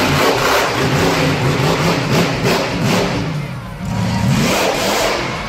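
Monster truck engine revving hard, its pitch rising and falling as the throttle is worked, easing off briefly about three and a half seconds in and then opening up again.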